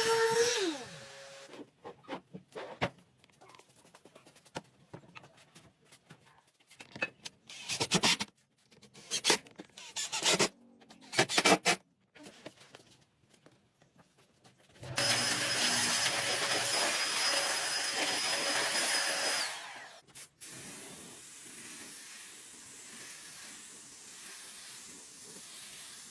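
Woodworking power tool spinning down, then a series of short rubbing or scraping strokes on wood. About halfway through, a power tool runs steadily for about four seconds with a high whine and stops suddenly, leaving a quieter steady hiss.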